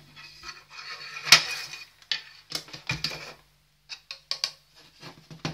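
A spoon scraping and clicking against the bowl of a mini food chopper while stirring a crumbly breadcrumb-and-cheese coating mix. There is one sharp clack about a second in and shorter knocks after it.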